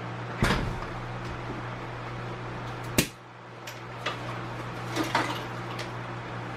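An electric fan's steady hum, with a few knocks and clicks of workshop handling. The sharpest click comes about three seconds in.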